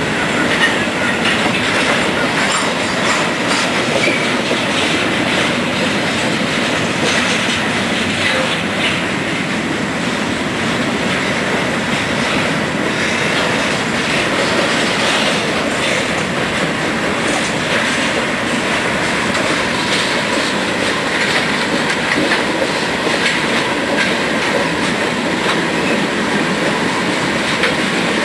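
Freight cars of a passing train (coal hoppers, then tank cars) rolling by steadily: a continuous rumble and hiss of steel wheels on rail, with repeated clicks as the wheels cross rail joints.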